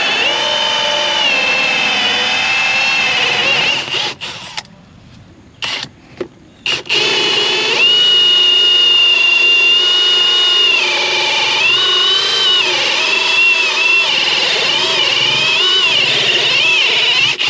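Cordless drill boring a hole through the side of a house, its motor whine rising and falling in pitch as the load and trigger change. It stops about four seconds in, with two brief bursts, then runs steadily again until just before the end.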